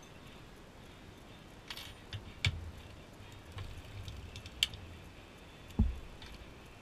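Scattered metallic clicks and knocks from parts of a circular sock knitting machine being handled, with a few sharp clicks and a louder, duller knock near the end.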